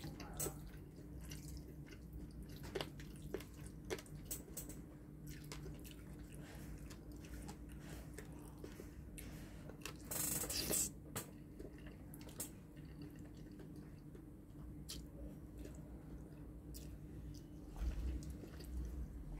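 Chewing with scattered clicks of wooden chopsticks against a ceramic bowl, and a loud slurp of spaghetti noodles about ten seconds in, over a steady low hum.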